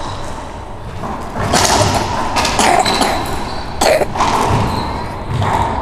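Racquetball rally: several sharp knocks of the ball being struck and hitting the court walls, echoing in the enclosed court.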